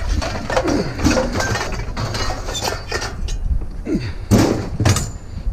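Pieces of scrap thrown at a junked vehicle, striking its body and windows with clanks and bangs; the two loudest hits come close together about four and a half seconds in, and the glass does not break.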